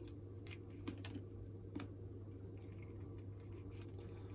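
A few light, scattered plastic clicks and taps as the hairdryer's housing parts and switch pieces are handled and fitted together, over a steady low hum.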